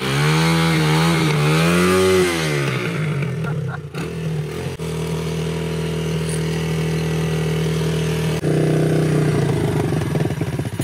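An engine revved up and down twice, then settling into a steady idle, with a slight change in its note about eight seconds in.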